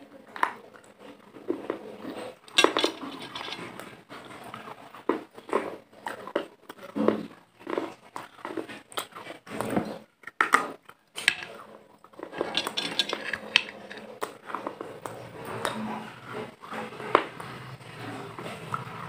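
Close-miked crunching and chewing of a hard white solid, bitten off in pieces: irregular sharp cracks and crackles with short pauses between bites.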